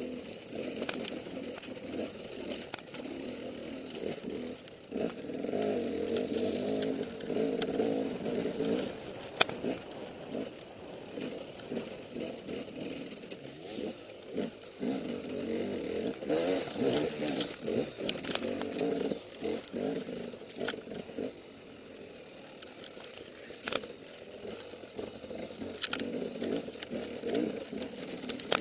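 KTM dirt bike engine heard from the rider's helmet, revs rising and falling as it climbs a rough rocky trail, with a few sharp knocks along the way.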